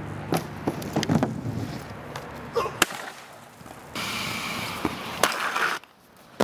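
Aggressive inline skates on concrete: wheels rolling with a steady hiss for a couple of seconds, and several sharp clacks of skate impacts, the loudest about three seconds in.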